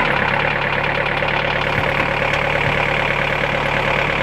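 Volkswagen T4 van's engine idling steadily.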